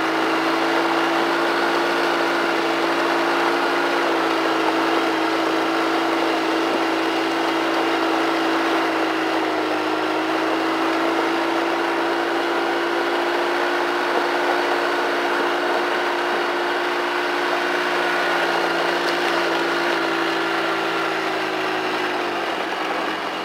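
ATV engine running at a steady speed while riding over rough trail, its pitch dipping slightly near the end as it slows.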